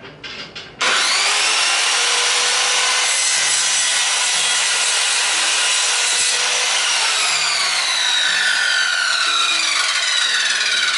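INGCO 1600 W circular saw starting up about a second in and cutting through thin plywood, a loud, steady sawing noise with the motor's whine. From about halfway the whine falls steadily in pitch.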